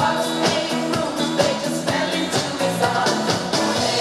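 Line-dance music with a steady beat, about two beats a second.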